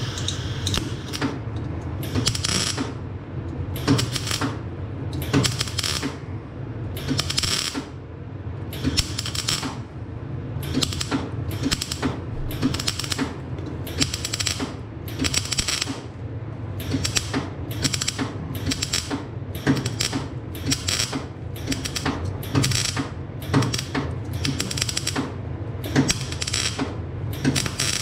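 MIG welding arc crackling on the exhaust pipe in short stitch-weld bursts about once a second, over a steady low hum.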